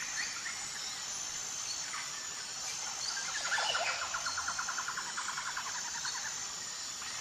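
Forest ambience of birds calling over a steady high-pitched drone, with a rapid chirping trill for a few seconds in the middle.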